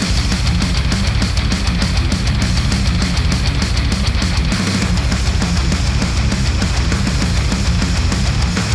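Heavy rock music with electric guitar and a fast, steady drum beat, played through Sennheiser headphones and recorded by microphones.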